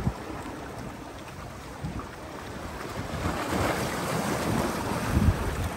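Sea waves washing against jetty rocks, swelling louder about three seconds in, with wind buffeting the microphone in low thumps.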